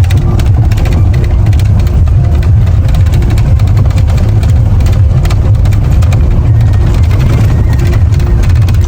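Motor vehicle engine running with a steady, loud low rumble, with light rattling clicks over it.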